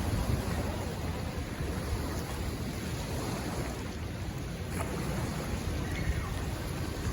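Steady ocean surf with wind noise on the microphone.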